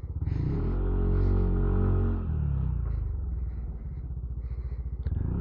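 Yamaha NMAX scooter's single-cylinder four-stroke engine running under way. Its note is steady at first, drops after about two seconds and picks up again near the end.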